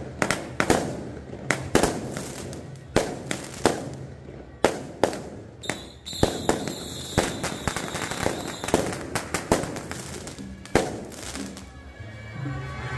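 Firecrackers going off in a long run of sharp, irregularly spaced bangs, some much louder than others.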